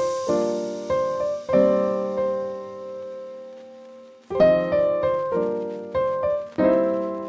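Background piano music: a slow series of chords, each struck and left to fade, with one chord ringing out for a few seconds in the middle.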